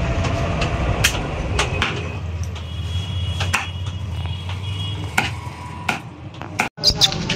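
A butcher's cleaver chopping a desi chicken on a wooden stump chopping block: about eight sharp, irregular chops over a steady low background rumble.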